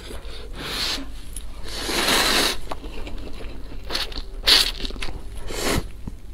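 Instant noodles slurped close to the microphone: several noisy, hissy slurps, the longest about two seconds in, with chewing sounds between.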